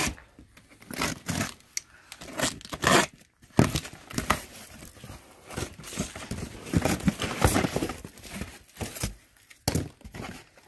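A taped cardboard carton being opened by hand: packing tape and cardboard flaps tearing and scraping in a string of short, irregular rips and crinkles, then small boxes shifting inside.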